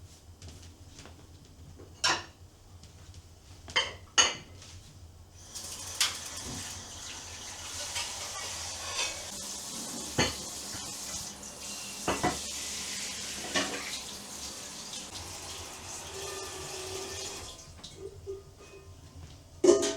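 Kitchen tap running for about twelve seconds while dishes and cutlery clink in the sink. A few sharp clinks of crockery come before the water starts and again just after it stops.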